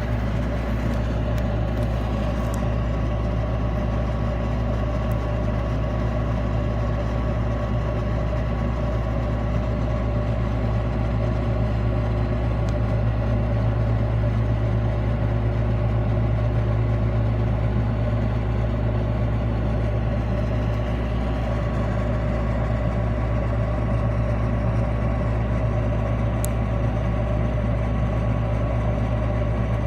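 Frigidaire 10,000 BTU window air conditioner running: a steady low compressor hum with the fan's whir and a few steady tones over it, from a unit whose evaporator coil has frozen over.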